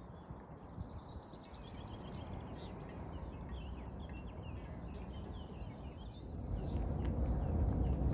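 Small birds chirping and twittering over a low outdoor rumble. About six seconds in, a louder low rumble comes in.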